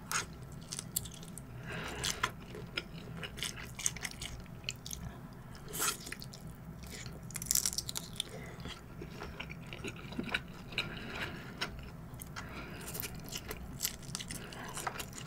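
A person chewing and biting giant shrimp nigiri sushi: a steady run of short mouth clicks.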